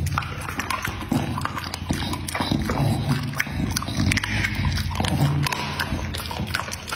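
An American bully dog chewing and smacking its lips on food held to its mouth by a gloved hand, as an irregular run of clicks and smacks.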